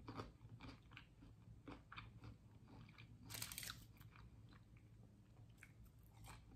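Faint close-up chewing of crispy fried potato, with small crunchy clicks. A brief rustle comes about halfway through, and near the end there is a fresh crunchy bite into a criss-cut fry.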